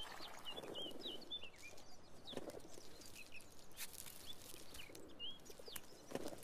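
Birds chirping faintly in short, scattered chirps, with a few soft clicks.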